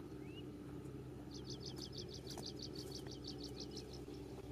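A bird calling: a fast run of repeated high chirps, about five a second, starting about a second and a half in and lasting nearly three seconds, with a short rising whistle near the start. A faint steady low hum lies underneath.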